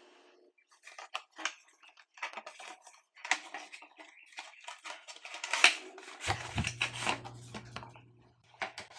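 Cardboard retail box of a portable SSD being unpacked by hand: the sleeve is slid off and the inner box opened. The sound is a run of scraping, rubbing and light tapping of card, loudest just past halfway.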